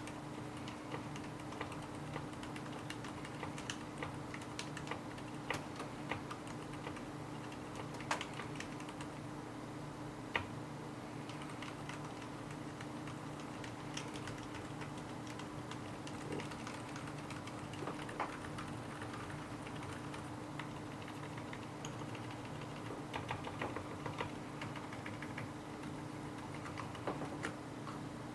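Mechanical keyboard being typed on: a steady run of soft key clicks with a few louder keystrokes, over a constant low hum.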